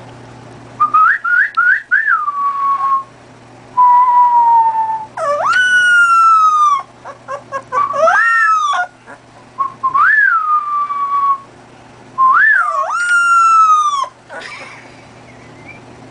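Golden retriever whining and howling in a string of high, whistle-like cries that swoop up and slide back down, about eight in all with short pauses between. It is vocal protest at being told it will not be taken out for a walk.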